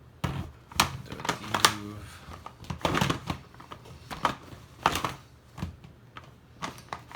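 Large plastic Rubik's cube being turned by hand: its layers clack and rattle in a string of irregular clicks as the blocks scrape past each other.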